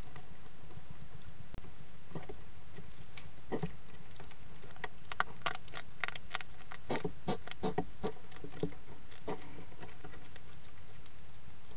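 A European hedgehog eating dry food from a dish: irregular runs of crunching, crackling clicks, densest in the middle, over the steady hiss of an analog CCTV recording.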